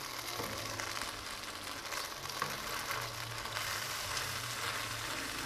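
Onions cooking in milk and cornflour sizzle steadily in a two-handled nonstick pan, with a wooden spatula stirring and scraping through the mixture.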